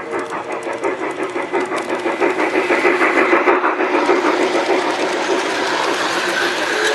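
G-gauge model steam train running past at rail level: a steady mechanical whirring with fast, rhythmic clicking of wheels and running gear on the track, growing louder as it comes close.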